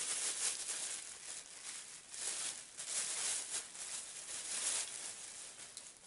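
Plastic bag wrapping crinkling and rustling in uneven bursts as hands unwrap it and feel the item inside.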